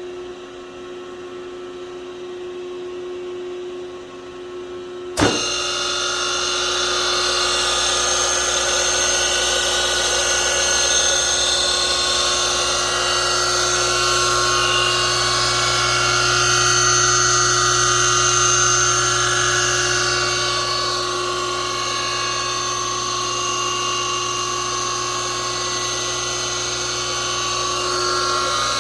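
Steady hum, then about five seconds in a click as the 5 hp three-phase motor of a 1965 DeWalt GA radial arm saw is switched on; it comes straight up to speed and runs steadily with a high, many-toned whine over a rushing noise. The motor is running on the bearings that are due to be replaced in its rebuild.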